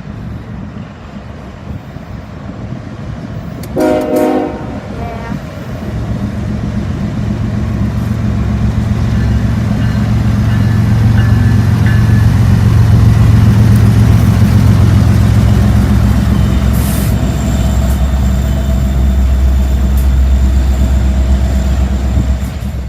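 A BNSF freight train's diesel locomotive, an EMD SD70MAC, gives one short horn blast about four seconds in. Its engine rumble then builds from about six seconds in and stays loud as it comes close and passes.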